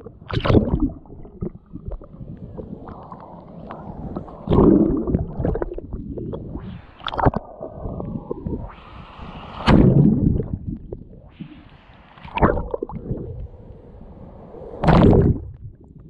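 Small sea waves breaking over a camera held at the water's surface. The splash and gurgle come in loud surges about every two to three seconds, six in all, with muffled sloshing between them.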